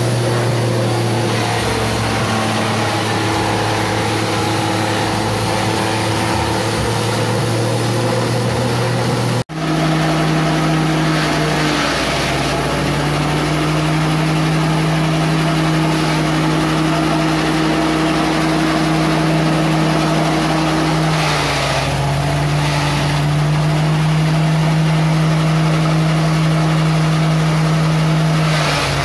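Small engine driving a livestock-feed chopper, running steadily at high speed. A few times its pitch dips briefly, with a burst of chopping noise, as green fodder is fed into the blades and the engine takes the load. The sound cuts out for an instant about nine seconds in and resumes at a higher pitch.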